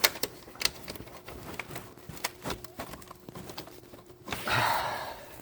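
Hands working on a car's plastic air intake parts: scattered light clicks and knocks, then a brief rustling scrape about four and a half seconds in.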